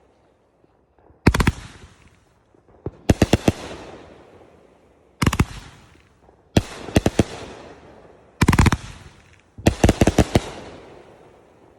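Consumer firework cake, the Radioactive Monster, firing its shots: six volleys of sharp bangs, some single and some in quick rapid clusters, coming every one and a half to two seconds, each dying away before the next.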